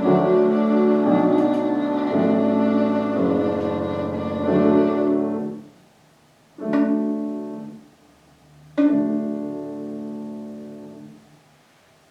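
Violin with piano accompaniment playing a classical piece to its close: held notes stop about five and a half seconds in, then two separate closing chords follow, the second left ringing until it fades.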